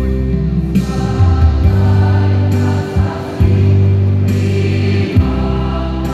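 A choir singing in harmony: held chords that move to a new chord every second or two.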